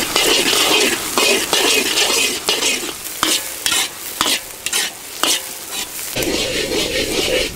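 Chopped onions, green chillies and curry leaves sizzling in hot oil in a large black wok while a metal ladle stirs them. The ladle knocks and scrapes against the pan with sharp clicks, more of them in the second half.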